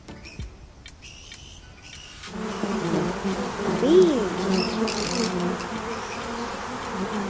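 Bee buzzing. The buzz starts about two seconds in, and its pitch swoops up and back down about four seconds in, where it is loudest.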